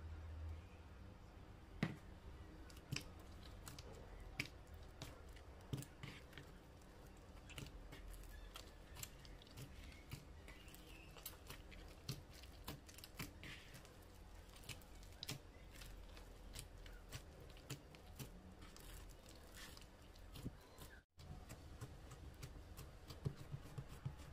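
Hands kneading soft, sticky flatbread dough in a wooden bowl: faint, irregular squishing and tacky clicks as the dough is pressed, folded and pulled.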